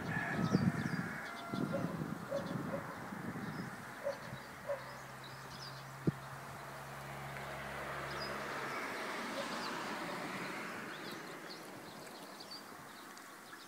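Small birds chirping over outdoor ambience, with short calls scattered through. A steady low hum runs for a few seconds in the middle, and there is one sharp click about six seconds in.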